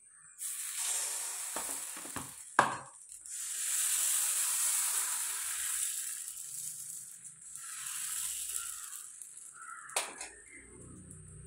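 Fermented wheat appam batter sizzling as it is poured into a hot non-stick appam pan and swirled around, the hiss starting suddenly and rising and falling as the pan is tilted. Two sharp knocks stand out, about two and a half seconds in and near the end.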